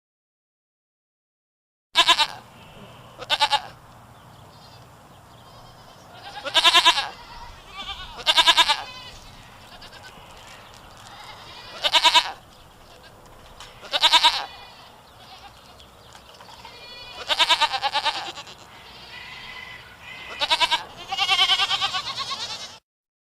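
Goat bleating repeatedly: about nine separate quavering bleats spaced one to four seconds apart, starting about two seconds in, with a faint steady hiss between calls.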